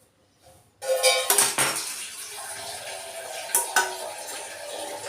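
A pan clatters about a second in, then ginger tea pours steadily into a glass, with two sharp metal clinks in quick succession midway.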